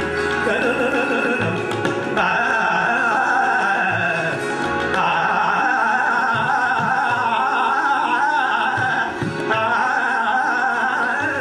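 Hindustani classical vocal music: a male voice sings a raga in long, ornamented, wavering notes over a steady drone, with occasional low tabla strokes.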